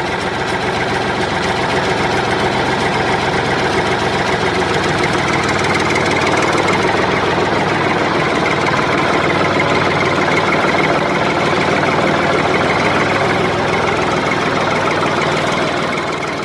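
A tractor engine idling steadily, fading out near the end.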